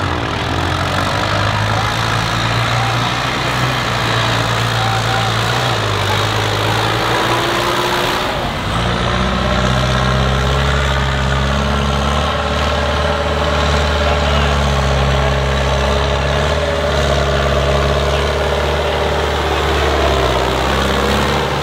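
Zetor farm tractors' diesel engines working hard through mud, one steady engine note and then, about eight seconds in, a different, deeper one.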